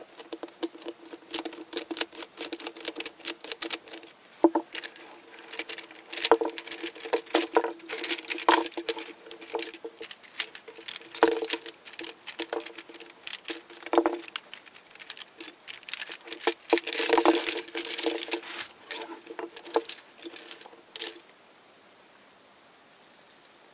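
Hard plastic pieces of a Gear Barrel twisty puzzle clicking and clattering as the puzzle is unscrewed and pulled apart by hand: many quick, irregular clicks and rattles that stop a couple of seconds before the end.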